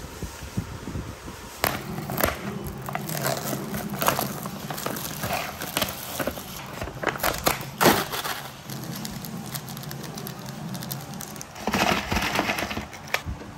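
Clear plastic film wrapping on instant cup noodle bowls crinkling and crackling as it is pulled off and the bowls are handled, in a string of short sharp crackles, with a denser stretch of rustling near the end as the paper lids are peeled back.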